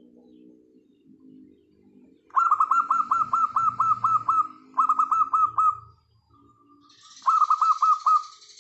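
Zebra doves (perkutut) calling. There are three loud bursts of rapid, repeated, downward-hooked notes, each burst lasting about a second or more, with soft low cooing between them.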